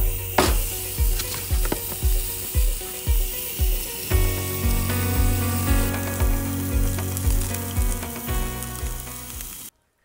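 Background music with a steady beat, about two low thumps a second, over the sizzling hiss of sausages frying. The music's chords shift about four seconds in, and the sound cuts off abruptly near the end.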